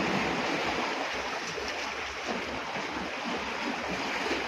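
Sea surf washing against the shore: a steady, even hiss with a low rumble underneath.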